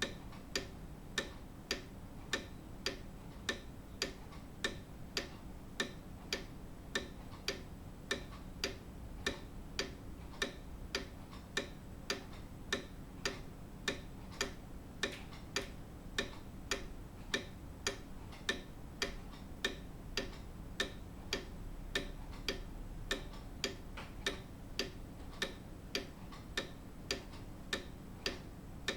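Grandfather clock ticking steadily with an even, regular rhythm of sharp ticks.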